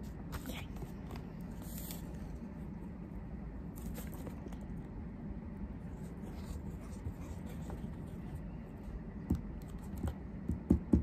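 Steady low room hum with faint clicks and rustles of craft paper and a plastic squeeze glue bottle being handled, a couple of short louder sounds near the end.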